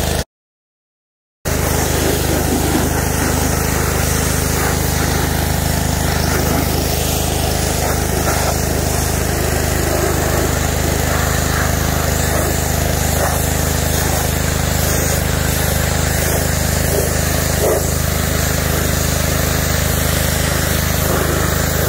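Pressure washer running steadily, its spray hissing as it hits the car's rubber-backed carpet. The sound cuts out completely for about a second just after the start, then carries on unchanged.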